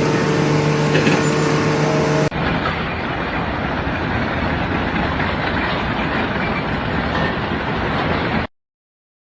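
A machine's steady low hum for about two seconds, cutting abruptly to a loud, even rushing noise like heavy machinery running. Near the end it stops dead into silence.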